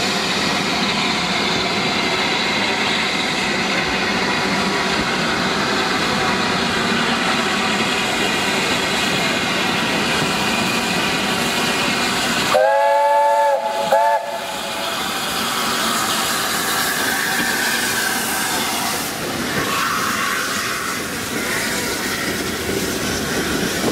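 Steam locomotive 71000 Duke of Gloucester running slowly through the station with a steady hiss of steam. About halfway through, it sounds its chime whistle: one long blast, then a short one.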